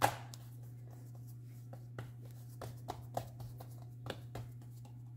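Hands patting and pressing yeast dough flat on a floured granite countertop: a string of soft pats and rubs, the first one louder, over a steady low hum.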